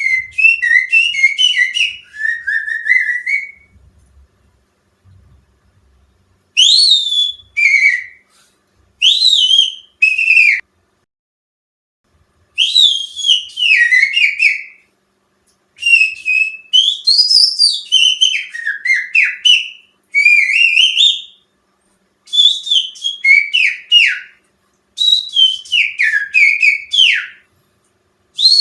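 Finger whistling imitating the song of the cucak ijo (greater green leafbird), used as a pancingan lure to get caged birds singing. Loud bursts of quick whistled notes that swoop up and down, in about nine phrases separated by pauses of a second or two.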